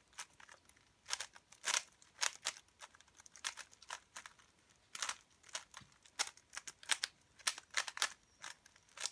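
3x3 Rubik's cube being turned by hand, its plastic layers giving a string of irregular sharp clicks and clacks as it is scrambled for the next solve.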